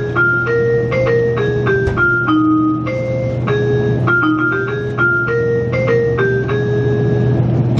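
Chime melody in an electric-piano tone over the train's on-board announcement speakers, a short phrase of stepped notes that repeats. A steady low hum from the stationary train runs underneath.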